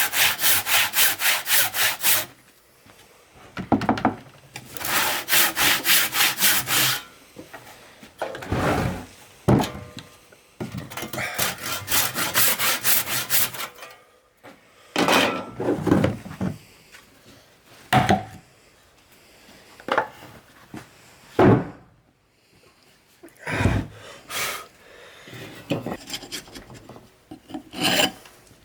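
Handsaw cutting through timber in quick, even strokes, in three bursts, cutting away waste wood. After these come scattered single knocks and short scrapes of wood on wood.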